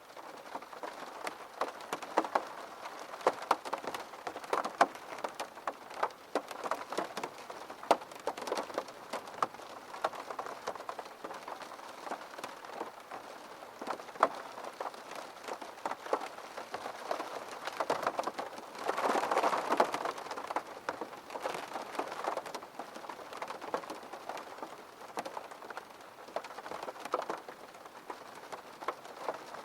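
Steady rain, with many sharp drops tapping on a hard surface. A heavier burst comes about two-thirds of the way through.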